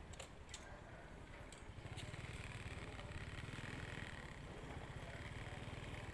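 Small motorbike engine running faint and steady at low speed, its low hum growing a little louder about two seconds in, with a few light clicks in the first second or so.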